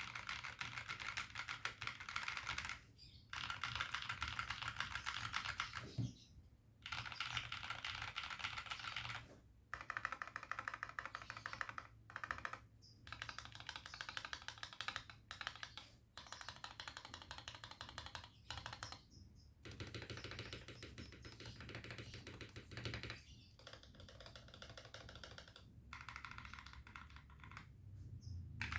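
Fast typing on a mechanical keyboard with Gazzew Boba U4T tactile switches in an aluminium case, dampened with tape and silicone: dense keystroke clatter in runs of a few seconds, broken by short pauses.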